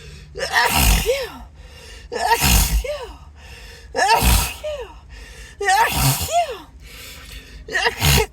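A person sneezing over and over in a sneezing fit: about five loud, voiced sneezes, one every second and a half to two seconds.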